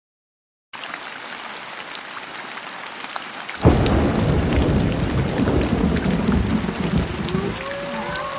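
Steady rain, then a sudden thunderclap about three and a half seconds in, followed by a long rumble of thunder that slowly fades.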